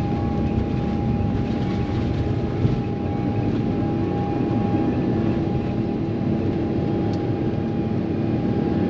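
Airbus A350-900 cabin noise while taxiing: the Rolls-Royce Trent XWB engines at low thrust give a steady hum and rumble with a steady high whine over it.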